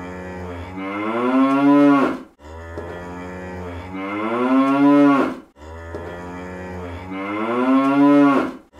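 A cow mooing sound effect, the same long moo played three times in a row. Each moo rises in pitch and grows louder before stopping abruptly.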